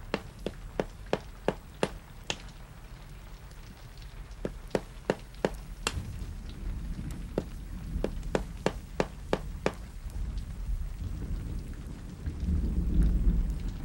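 A series of sharp knocks, in runs of about three a second with short pauses between runs. Under them is a low rumble that swells near the end.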